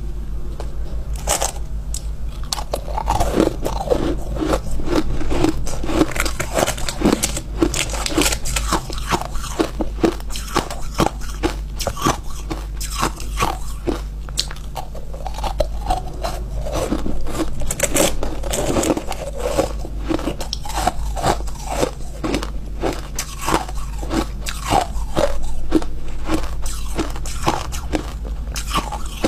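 Close-miked crunching of refrozen ice being bitten and chewed: a dense, irregular run of dry, crisp crunches, several a second, throughout.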